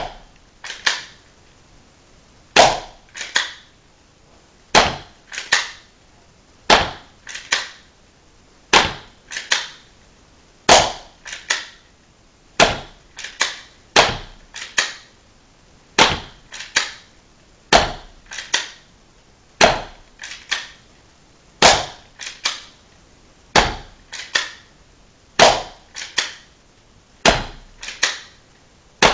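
Taurus PT 24/7 airsoft pistol firing single shots, about fifteen in all, one every two seconds or so. Each shot is a sharp snap, followed under a second later by one or two quieter clicks.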